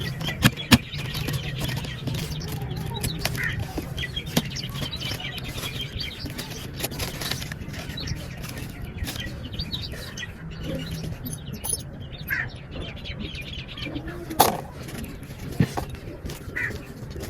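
Pigeons fluttering and moving about, with several sharp knocks and a few short calls.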